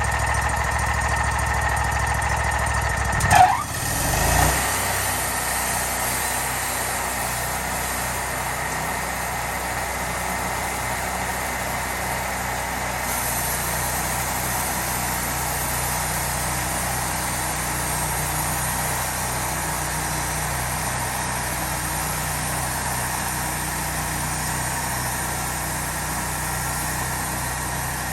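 Portable sawmill's gasoline engine running steadily, with a brief surge about three and a half seconds in, after which it settles to a slightly quieter, even run.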